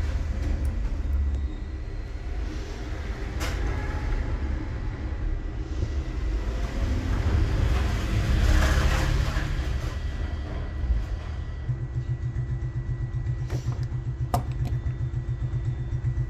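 Low rumble of a running motor vehicle, turning into an even pulsing for the last few seconds, with a couple of sharp metal clicks from small hand tools working the pins of an ignition lock cylinder.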